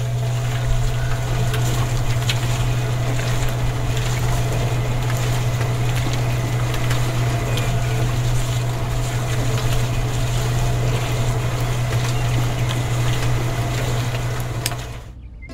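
Small electric motor of a miniature homemade concrete mixer running with a steady hum over a noisy churn as the drum turns. It cuts off suddenly near the end as it is switched off.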